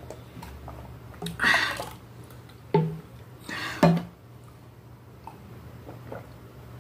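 A person drinking juice from a glass: short gulps and two loud, breathy sounds, about a second and a half in and again near four seconds.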